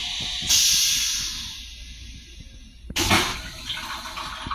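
M7 railcar toilet flushing: a sudden hiss of rinse water spraying into the stainless steel bowl about half a second in, fading away, then a second hissing spray pulse about three seconds in.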